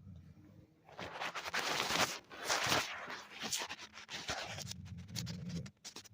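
Sleeping dogs snoring: loud, rasping, crackly breaths from about a second in, with a low rumbling snore near the end.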